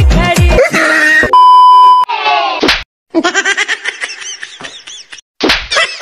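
Dance music with a heavy beat stops about half a second in. A loud, steady beep follows, then a quick falling-pitch sound effect, a brief silence, and a voice clip.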